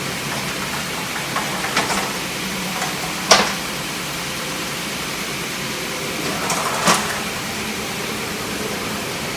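A few short knocks and clatters over a steady hissing background noise. The loudest knock comes about a third of the way in, with another near the end.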